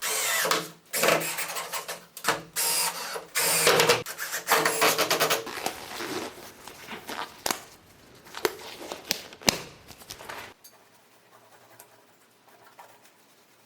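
Power tool on wood running in short stop-start bursts, which fade and stop about ten and a half seconds in, leaving only faint background noise.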